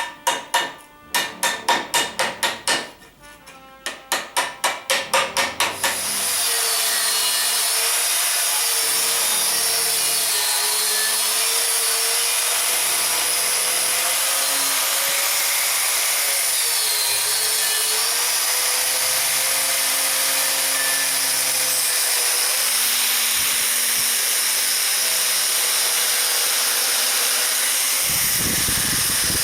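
A few seconds of rhythmic background music, then a steady, loud spraying hiss that runs on with a slightly wavering hum underneath.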